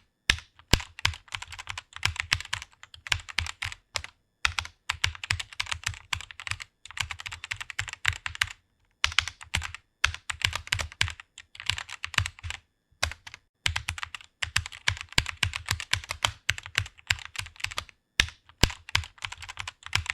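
Typing on a computer keyboard: quick runs of keystroke clicks with brief pauses every few seconds.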